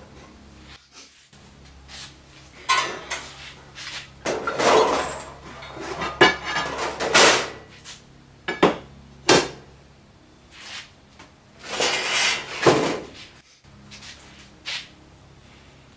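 Sheet metal being handled, with irregular clanks, knocks and scrapes, a few sharp metallic hits among them.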